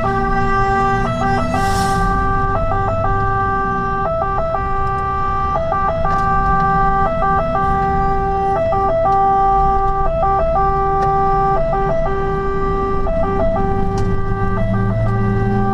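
Fire engine's two-tone siren sounding continuously, switching back and forth between a higher and a lower pitch, heard from inside the cab over the truck's engine and road rumble.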